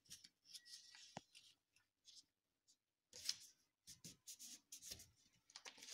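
Faint rustles and scrapes of paper being folded and creased by hand, in short scattered strokes with a quiet gap in the middle.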